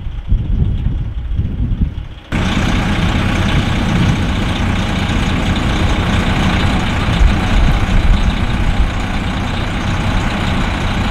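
Semi tanker truck's diesel engine running hard with its drive wheels spinning on snow, as the stuck truck is pulled. An uneven low rumble changes abruptly about two seconds in to a louder, steady engine-and-tyre noise.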